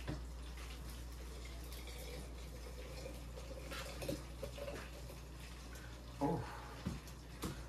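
A dark drink being poured from an upturned bottle into a glass, a faint liquid trickle with a thin, nearly level tone for a few seconds, over a steady low hum. A couple of light clicks of bottle or glass come near the end.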